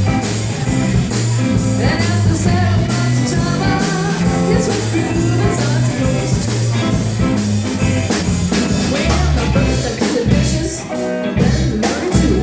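Blues-rock band playing live, with a steady drum beat under changing bass notes.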